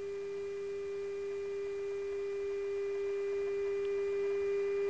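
Steady electrical hum held at one pitch, with fainter higher overtones, on the aircraft's interphone audio; it edges slightly louder toward the end. It is the kind of whine that a KC-135's 400 Hz AC electrical system induces in headset and intercom lines.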